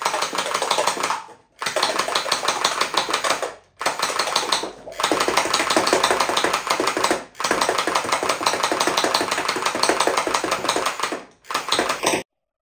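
Toy gel blaster built into a Captain America shield firing on automatic: a fast, even mechanical rattle in about six bursts of one to four seconds with brief pauses between trigger pulls, cutting off abruptly near the end.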